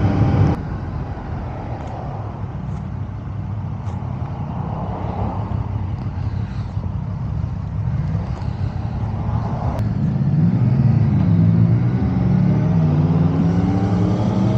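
Motorcycles riding past, their engines rising and falling in pitch as they change speed, getting louder in the second half.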